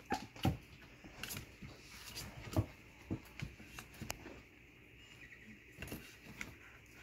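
Scattered light knocks, taps and scuffles from Doodle puppies moving about in their pen, their paws scrabbling on the bedding and against the pen wall.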